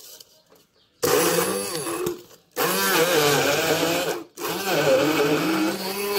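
Handheld immersion blender running in a plastic beaker, grinding honeycomb. It starts about a second in and runs in three bursts with brief pauses between them, its motor pitch wavering.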